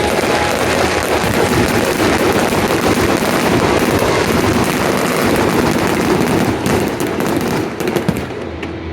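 Fireworks going off in a dense barrage of crackling and popping, with a few sharper bangs near the end as it eases off.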